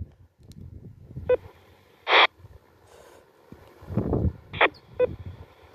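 Talkpod A36 Plus handheld radio between transmissions on a repeater channel: a few short clicks and brief bursts of squelch hiss from its speaker as the channel opens and drops, with a low rumble about four seconds in.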